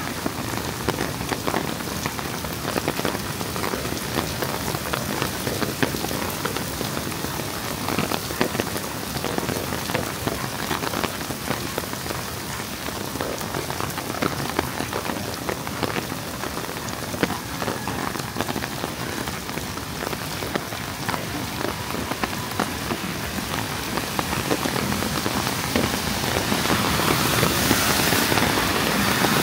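Heavy rain falling steadily, with many individual drops ticking sharply close by. The downpour grows louder and hissier near the end.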